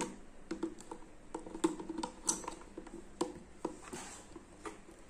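An AA battery being fitted into the plastic battery holder of a wall clock's quartz movement: a run of irregular small plastic clicks and taps under the fingers.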